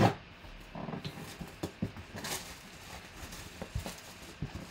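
A knife slicing through the plastic shrink-wrap on a cardboard box, loudest at the very start. This is followed by crinkling plastic wrap and light taps and scrapes of cardboard as the box lid is lifted.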